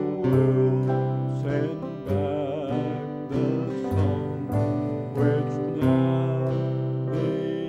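An older man singing a country-style song, accompanying himself on a strummed acoustic guitar.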